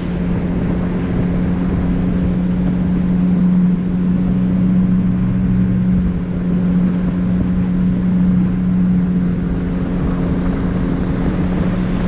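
Outboard motor of a small aluminium boat running steadily under way, a constant hum that holds one pitch, with a brief dip about six seconds in.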